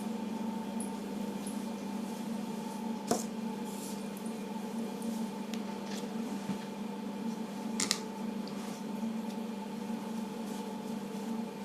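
Faint rustling of a brush working a wet hair mask through hair, with two short clicks of handling about 3 and 8 seconds in, over a steady electrical hum.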